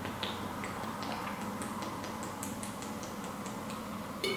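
Drinking water from a 750 ml plastic bottle: the thin plastic gives a scatter of light clicks and crackles as it flexes, with one sharper click near the end.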